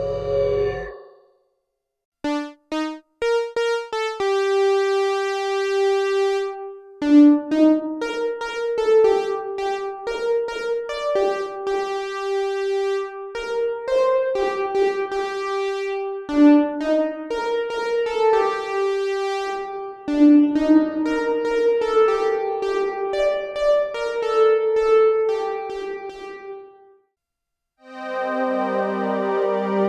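Synthesizer playing a keyboard-like melody through the Donner Vintaverb stereo reverb pedal on its Mod algorithm: a few short notes, then held notes and chords. It stops near the end and a different wobbling patch starts up.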